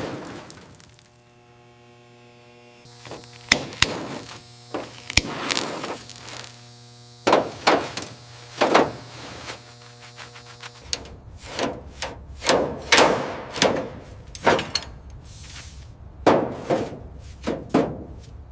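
A series of irregular sharp knocks and thuds, like hammer blows, over a steady hum that stops about eleven seconds in.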